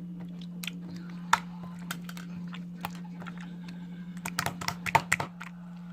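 Slime being squished and pressed by hand, giving irregular crisp clicks and pops, with a quick run of them about four to five seconds in. A steady low hum runs underneath.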